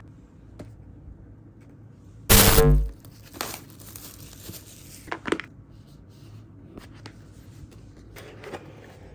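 Album packaging being handled during an unboxing: crinkling and tearing of plastic and paper, with one loud half-second burst of noise a little over two seconds in and a few short clicks after it.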